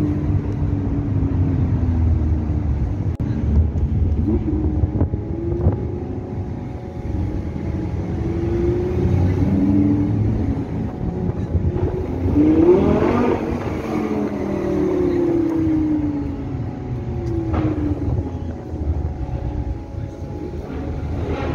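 Car engines and exhausts as cars drive past at a car meet, over a steady traffic rumble, with voices in the background. About thirteen seconds in, one car revs loudly as it passes.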